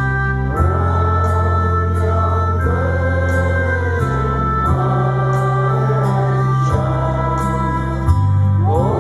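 A group of carol singers singing a Christmas carol together, over an instrumental accompaniment of held low bass notes that change every second or two.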